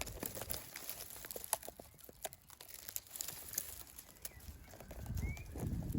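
Faint rustling and crackling of leaves and twigs, with scattered small clicks.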